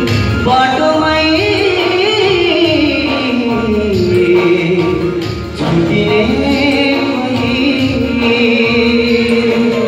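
A young man singing into a handheld microphone, his voice amplified through a PA speaker. A long phrase falls in pitch, there is a short break about five and a half seconds in, and then a steadier held note follows.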